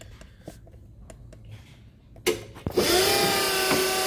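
A few faint clicks, then about two seconds in a sharp clunk, and an electric motor on the Crown RR5500 reach truck starts up with a steady high whine.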